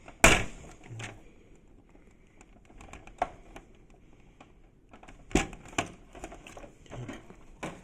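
Sharp plastic clicks and knocks as the catches holding an inkjet printer's separation module are pressed and worked loose. The loudest click comes just after the start, with scattered clicks about three seconds in and a close pair a little past five seconds.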